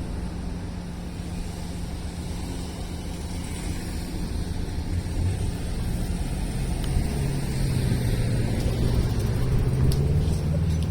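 Low steady vehicle rumble that grows louder over the last few seconds, with a low hum rising slightly near the end.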